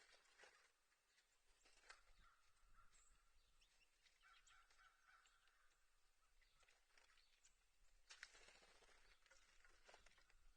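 Near silence: faint outdoor ambience with scattered small clicks and faint distant bird calls, with a somewhat louder click about eight seconds in.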